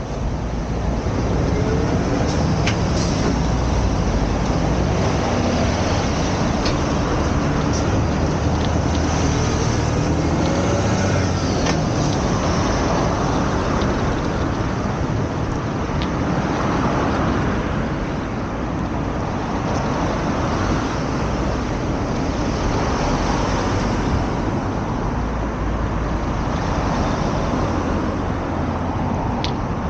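Road traffic: motor vehicles running and passing over a steady low rumble, with an engine note rising twice as vehicles pull away.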